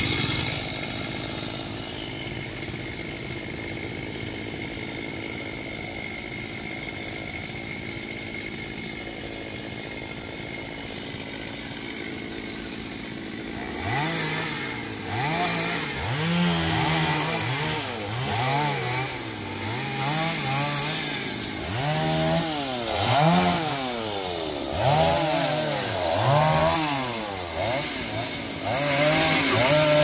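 Two-stroke chainsaw running steadily at low speed, then from about halfway revving up and down over and over, roughly every one and a half to two seconds, as it cuts through branches.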